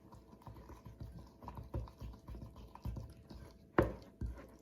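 Spoon stirring a thick paste of tahini, powdered milk and cream in a bowl: irregular soft taps and sticky scrapes, with a sharper clink just before the end.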